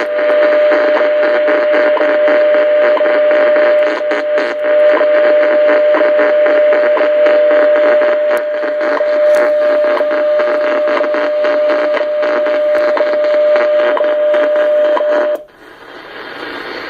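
Kenwood TS-140S HF transceiver putting out loud interference noise through its speaker: a raspy hiss with a steady whistle that pulses about once a second, which the owner suspects is RFI. It cuts off abruptly about fifteen seconds in, leaving fainter hiss.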